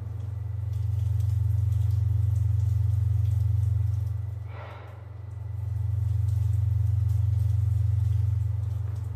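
A low, steady rumbling drone that swells and fades, dipping briefly about five seconds in, where a short hiss passes over it.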